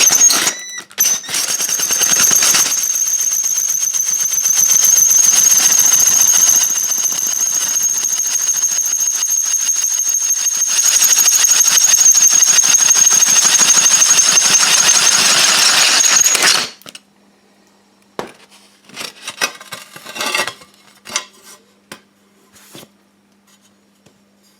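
Power drill spinning an adjustable large-hole tile cutter through a ceramic tile as the hole is finished: a steady high whine over a grinding scrape for about sixteen seconds, then the drill stops suddenly. A few light knocks and clicks follow.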